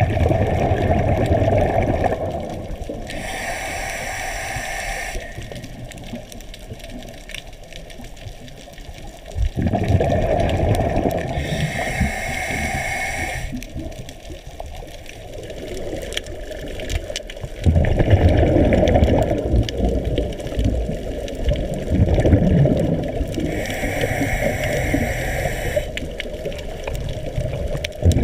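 Scuba diver breathing through a regulator underwater: loud bouts of rushing exhaust bubbles alternate with the hiss of inhalation, three breaths in all.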